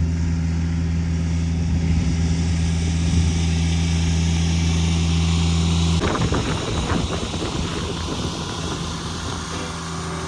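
An engine running at a steady idle. About six seconds in, the sound changes abruptly to a rougher, uneven noise.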